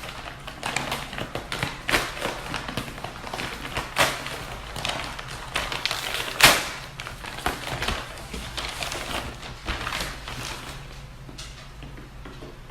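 Handling noise of a package being opened: irregular rustling and crinkling with light taps and knocks, the loudest about six and a half seconds in, easing off near the end.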